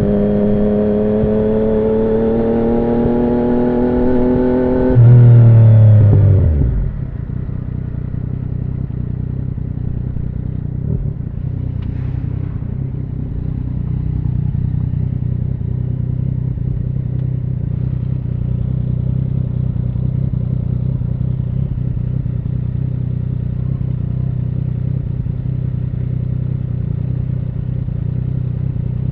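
A 2017 Yamaha MT-09's three-cylinder engine through an Akrapovic carbon full exhaust, pulling with steadily rising revs for about five seconds. It briefly gets louder as the revs drop away and the bike slows. It then idles steadily at low revs for the rest.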